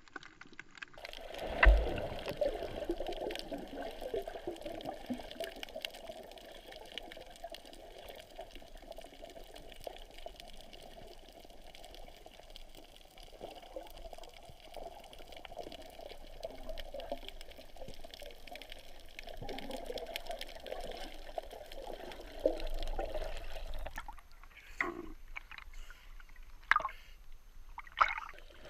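Muffled water sloshing and bubbling, heard through an underwater camera housing, with a sharp knock about two seconds in. The sound changes abruptly near the end to a quieter hiss broken by a few short crackling bursts.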